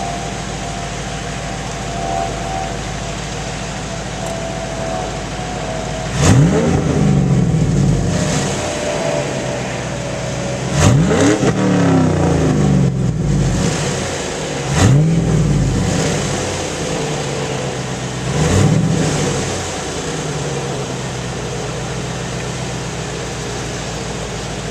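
A 2000 Camaro SS's LS1 V8 breathing through SLP headers, SLP cats and a Flowmaster muffler, idling steadily, then revved four times about four seconds apart, each rev rising quickly and falling back to idle, before settling back to idle.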